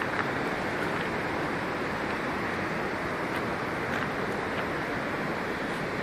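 Steady rushing of a mountain creek, with a few faint clicks of footsteps on a stony path.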